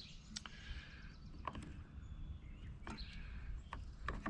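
Scattered faint clicks and light taps of hand tools and small parts as a Husqvarna 350 chainsaw's throttle linkage and carburetor are worked loose, over a low steady background rumble.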